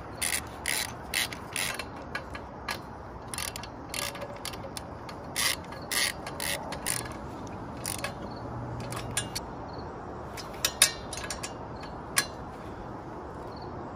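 Ratchet wrench clicking in short irregular runs as the exhaust header bolts on a motorcycle's cylinder head are tightened. There are two louder clicks close together near the end.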